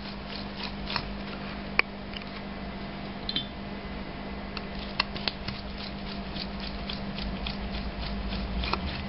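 Torx screwdriver turning out the T25 screws on the electronic control unit of a Bosch VP diesel injection pump: scattered small metallic clicks and ticks, with a sharper click about two seconds in and another about five seconds in. A steady low hum sits underneath.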